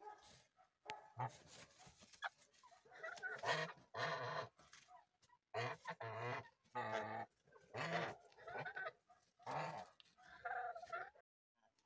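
A flock of domestic geese and chickens calling: about ten short honks and clucks, one every second or so.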